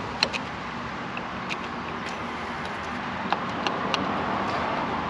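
Scattered light metallic clicks of a Hemi V8's timing chain and camshaft sprocket being worked into place by hand, over a steady background hum.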